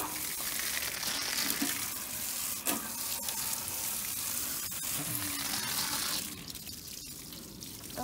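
Garden hose spray hissing steadily against the coil fins and wire grille of an outdoor air conditioner condenser. The hiss drops off sharply about six seconds in.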